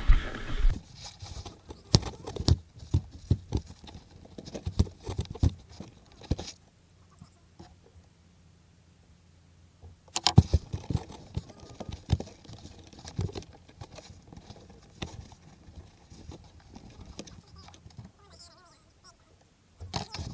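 Irregular clicks and taps of hand tools and wire being worked while splicing and crimping connectors onto car wiring, stopping for a few seconds midway and then going on.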